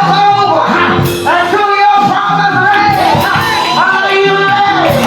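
Church praise music: voices singing held, sliding notes over band accompaniment with a steady beat.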